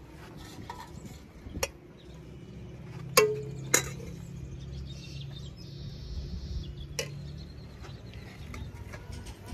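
Metal serving ladle clinking against a metal cooking pot and a steel plate as rice is scooped and served: four sharp clinks, the loudest two close together about three seconds in, the first of those briefly ringing.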